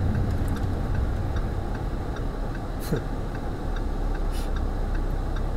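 Supercharged Lamborghini Huracan's V10 running gently under low cabin road rumble at low speed, with the turn signal ticking regularly. A single short knock about three seconds in.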